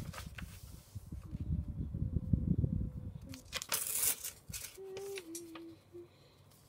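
Sheets of A4 paper rustling and crinkling as they are flipped over and folded by hand, with a few sharper paper snaps about four seconds in.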